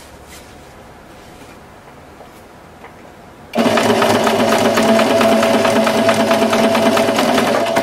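After a quiet pause, an electric domestic sewing machine starts about three and a half seconds in and runs steadily at speed, stitching a hem along the folded edge of a napkin. The sound is a fast, even stitching rattle over a steady hum.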